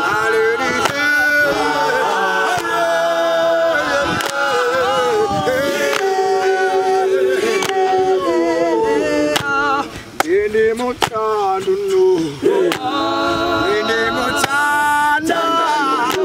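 Male a cappella group singing a gwijo-style song, many voices together in harmony.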